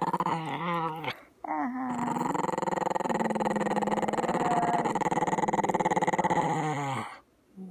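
Dog growling steadily over a chew held in a person's hand. The growl breaks off about a second in, starts again, and stops shortly before the end.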